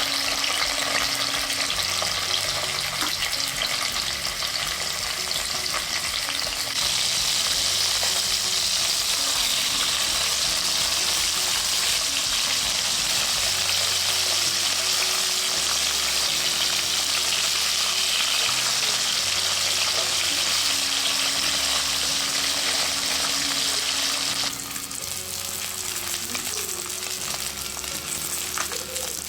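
Chilli-marinated fish frying in hot coconut oil in a pan: a steady, dense sizzle that grows louder about seven seconds in and drops suddenly in level near the end.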